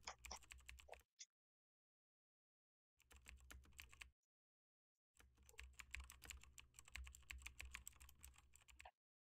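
Computer keyboard typing: three runs of quick key clicks, the longest starting about five seconds in, with dead silence between them.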